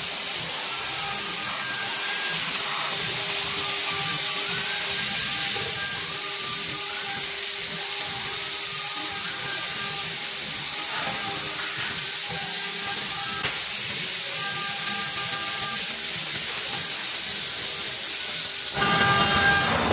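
CNC router engraving MDF: its stepper motors whine in short rising and falling tones as the gantry and spindle head move, over a steady loud hiss. About a second before the end the hiss stops abruptly and steady machine tones take over.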